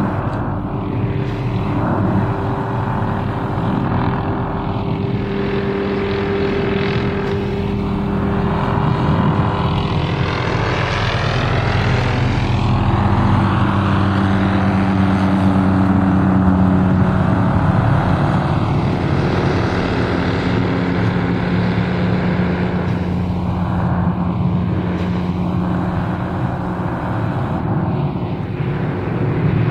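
MD 500-series police helicopter flying low overhead, its rotor and turbine making a steady drone that swells a little toward the middle.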